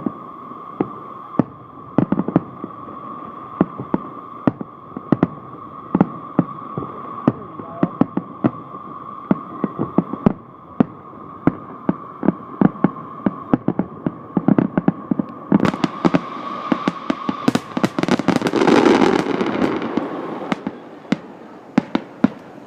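Aerial fireworks going off in rapid succession: a continuous string of sharp bangs and pops, with a louder burst of crackling that swells about 16 seconds in and fades by about 21 seconds. A steady high tone runs underneath until about 17 seconds in.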